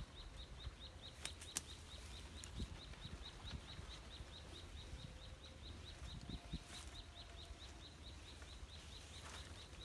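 A small animal chirping steadily, short high chirps about four times a second, over a faint low rumble. Two sharp clicks come about a second and a half in.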